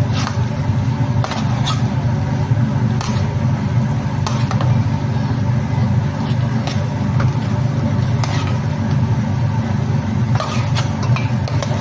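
A metal spoon clinks and scrapes against a pan every second or two as sticky sauce is spooned over chicken pieces, over a steady low motor hum.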